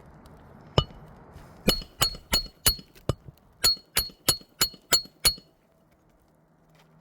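Hammer striking the back of a roof snake, a metal shingle-removal tool, to drive it under the shingles: one blow, then about ten quick blows roughly three a second, each with a short metallic ring.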